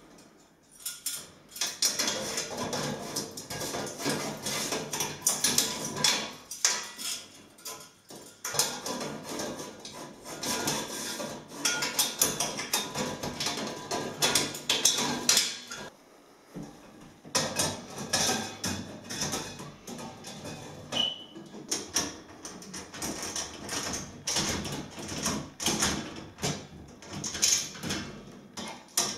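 Tubular steel parts of an adjustable trestle being handled and fitted together during assembly: irregular clanks, knocks and rattles, with brief lulls about eight and sixteen seconds in.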